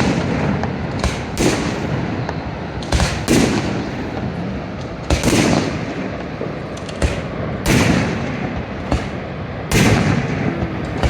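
Aerial fireworks going off, a sharp bang every one to two seconds, each trailing off in an echo, over a steady background hiss.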